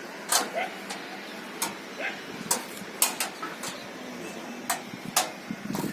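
Irregular sharp clicks and taps, about a dozen, with faint voices in the background.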